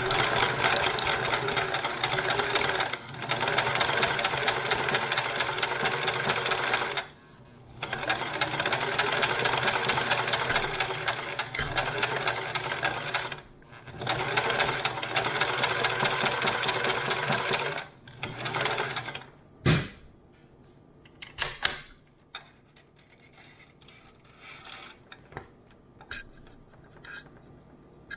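Electric sewing machine stitching fabric in four long runs of rapid, even stitching with short pauses between, then a short final burst. After that come a few sharp clicks and light handling of the machine and fabric.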